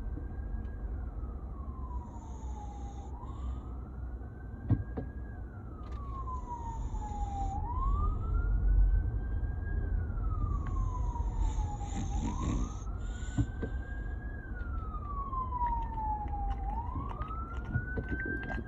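Emergency vehicle siren in a slow wail, rising and falling about every four and a half seconds, over a steady low rumble. A single sharp knock comes about five seconds in.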